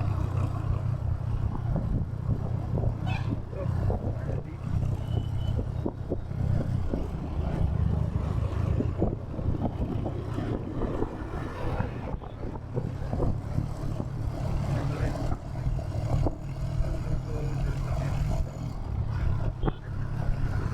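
Royal Enfield Hunter 350's single-cylinder engine running under way, its exhaust giving a steady low thump, with road and traffic noise around it.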